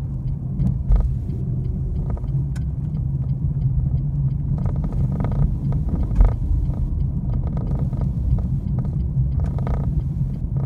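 Car interior road and engine noise picked up by a dashcam while driving at low speed: a steady low rumble, with faint regular ticks over it.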